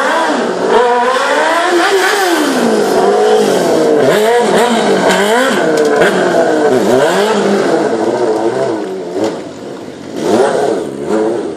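Stunt motorcycle's engine revving hard and dropping back again and again, its pitch sweeping up and down. It eases off briefly near the end, then revs up sharply again as the front wheel lifts into a wheelie.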